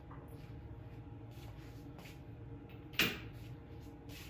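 A single sharp knock about three seconds in, ringing briefly, over a faint steady hum.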